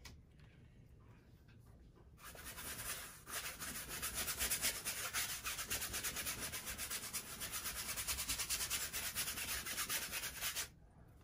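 Wide flat brush scrubbing blue acrylic paint across a canvas, a dry scratchy rubbing. A short stroke comes about two seconds in, then a longer run of brisk strokes that stops shortly before the end.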